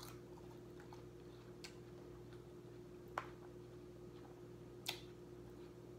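Quiet eating: four short, sharp clicks about a second and a half apart, the last two loudest, over a steady low hum.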